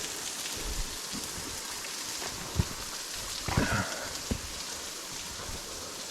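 Steady rushing of a waterfall, with a couple of brief knocks about halfway through.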